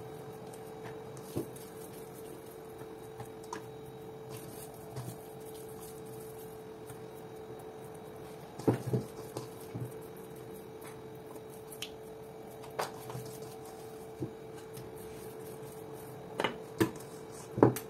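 Hands working moist tapioca cake dough out of a stainless steel bowl onto an aluminium baking pan, with scattered knocks of the metal bowl and pan, the loudest a pair about halfway through and a few more near the end. A steady hum runs underneath.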